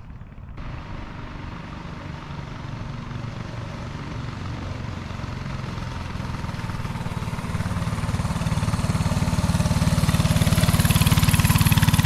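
Predator 224 single-cylinder four-stroke engine of a hardtail mini bike running, growing steadily louder and loudest near the end.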